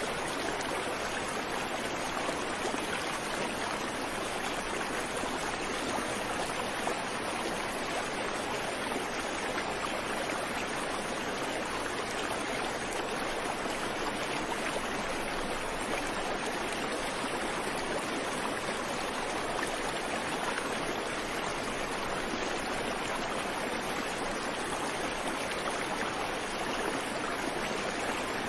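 Creek water flowing and rushing over stones, a steady even rush without birds or other sounds.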